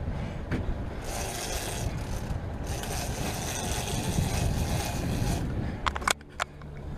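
Motorboat under way with water rushing along the hull, a steady noisy rush that swells and fades. A few sharp knocks come near the end, after which a low engine hum stands out.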